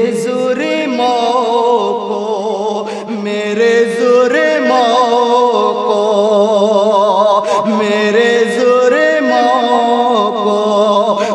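A man singing a naat (devotional Urdu poem) unaccompanied, drawing out long held notes that waver up and down.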